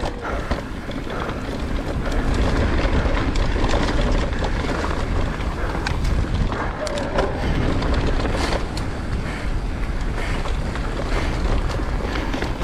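Wind rumbling on the rider's camera microphone while a mountain bike rolls over rough, rocky trail, with scattered small knocks and rattles from the bike.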